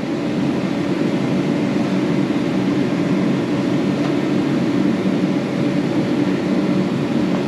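Steady mechanical hum of a machine running, with a few steady tones and no change in level.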